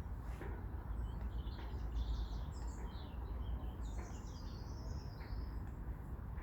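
A small songbird singing rapid, chirping, warbling phrases from about a second in until near the end, over a steady low rumble.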